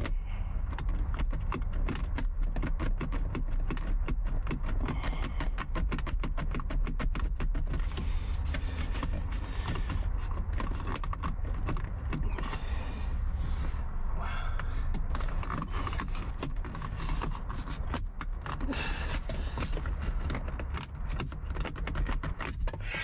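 Plastic console trim panel of a 2nd-gen Chevy Colorado clicking, creaking and rattling as it is pulled and worked against retaining clips that will not let go. Dense small clicks go on throughout over a steady low rumble.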